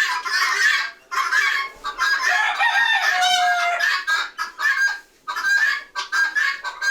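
A barn full of poultry (chickens and guinea fowl) clucking and calling loudly without a break. A rooster crows about two and a half seconds in.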